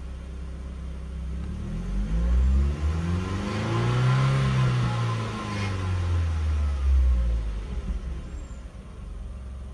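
Mercedes W202 C180's M111 1.8-litre four-cylinder petrol engine blipped once from idle: the pitch rises for about three seconds, peaks, and falls back to idle. It sounds pretty good on its newly replaced air mass sensor, which has cured the earlier missing.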